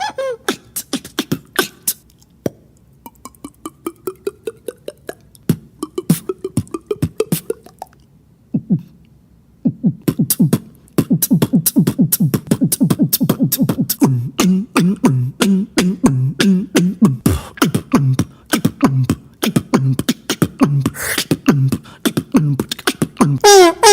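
Human beatboxing: rapid mouth clicks and percussive hits, with rising pitched vocal glides in the first half. From about ten seconds in, a steady beat of clicks runs over a hummed low bass line.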